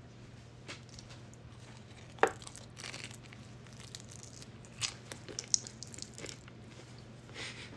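Takeout food packaging being handled: scattered crinkles, rustles and light taps, over a faint steady low hum.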